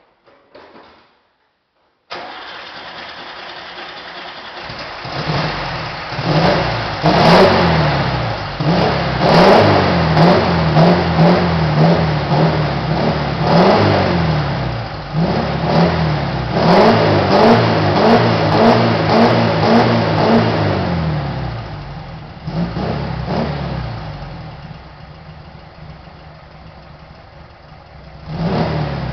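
Volkswagen Brasília's air-cooled 1600 cc flat-four running through a 4-into-1 exhaust header. It comes in suddenly about two seconds in at idle, is revved up and down again and again, drops back to idle, and is revved again near the end.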